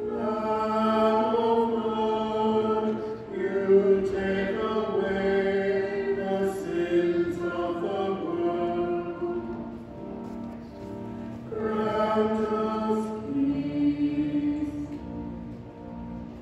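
Choir singing slowly in long held notes, with brief pauses between phrases.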